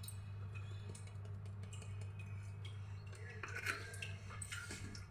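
Quiet kitchen room tone with a low steady hum, and a few faint clicks and light taps in the second half as small spice containers are handled.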